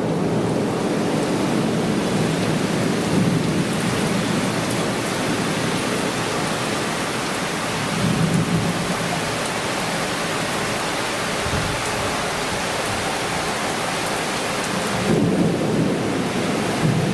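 Torrential summer downpour, a steady dense hiss of heavy rain, with thunder rumbling low at intervals, about eight seconds in and again near the end.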